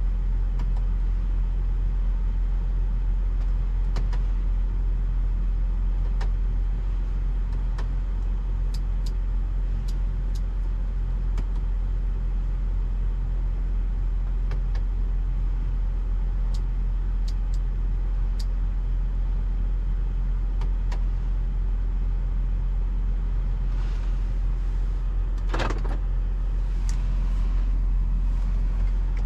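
BMW X5 on the move: a steady low rumble of engine and tyres on the road, with faint clicks now and then and one brief louder noise near the end.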